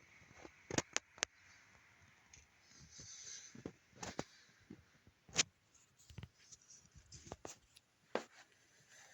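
Scattered light clicks and taps at irregular intervals, over a faint hiss.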